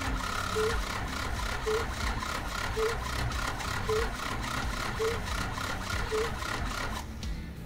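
T-40 tractor's cold diesel turned over by its electric starter without starting, a steady cranking rhythm of about four strokes a second, with a short tone repeating about once a second; the cranking stops about seven seconds in. It is a cold start at −14 °C with unheated oil and the intake manifold warmed by a gas burner; the engine catches only slightly.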